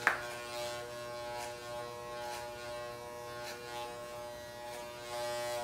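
Corded electric hair clippers buzzing steadily as they cut hair, with a sharp click just after the start.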